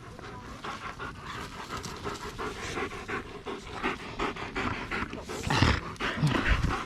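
A dog panting quickly and steadily close by, with a brief louder noise about five and a half seconds in.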